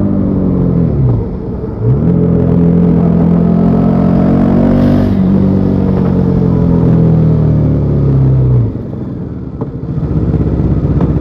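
Bajaj Pulsar NS400Z's single-cylinder engine through its stock exhaust while riding: revs fall, climb again about two seconds in with a gear change midway, then die away slowly until the engine drops to a low, pulsing run near the end.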